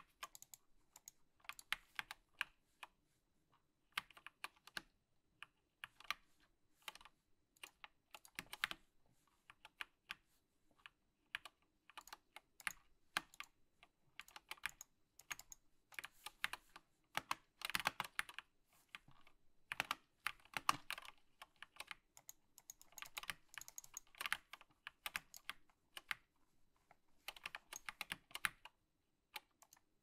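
Keystrokes on a SteelSeries Apex Pro TKL mechanical keyboard with its linear OmniPoint magnetic switches. Irregular runs of quick key presses come in bursts with short gaps, and are densest about two-thirds of the way through.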